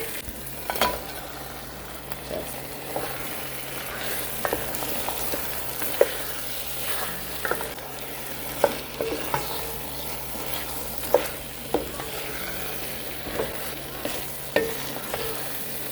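Fried turkey pieces being stirred into a sizzling tomato sauce in a pot: a steady sizzle with irregular clinks and scrapes of the spoon against the pot.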